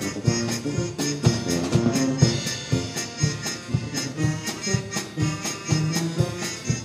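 Polka band music with a quick, steady beat.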